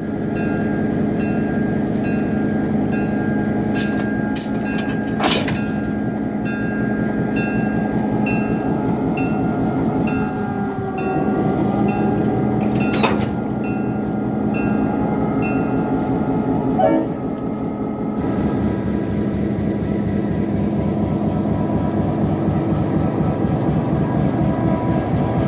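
Diesel locomotive, an EMD GP38-2, running steadily. Over it a bell rings in an even rhythm of about one and a half strikes a second, which stops about 18 seconds in. A few sharp metallic clanks come about 5, 13 and 17 seconds in.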